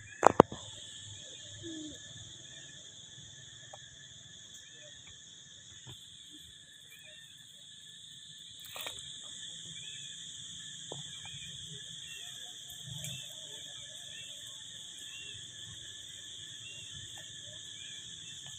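A steady high-pitched insect drone fills the background, with faint short chirps about once a second. Two sharp knocks, the loudest sounds, come just after the start, and a fainter knock comes about halfway through.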